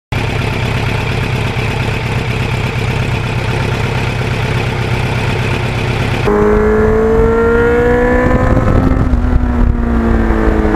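Kawasaki Ninja GPX750R inline-four with a Norton muffler running at speed, a steady rumble mixed with wind rush. About six seconds in the sound changes abruptly to a clearer engine note whose pitch climbs steadily as the bike accelerates.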